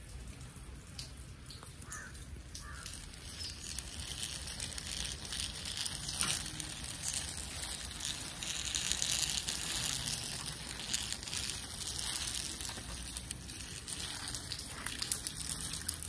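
Light rain falling on wet concrete and foliage: a steady hiss with scattered small drip ticks, swelling a few seconds in.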